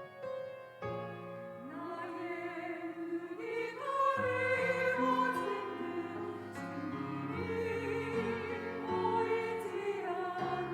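Church choir singing an anthem with piano accompaniment. Piano chords play alone at first, and the voices come in about two seconds in.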